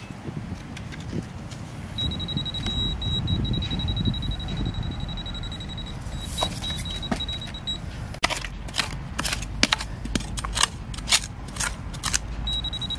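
A handheld metal-detecting pinpointer sounds a steady high alert tone for several seconds in the hole, the sign of metal close by. About eight seconds in it gives way to roughly ten sharp scrapes and knocks of a small hand digging tool in the soil, and the tone returns near the end.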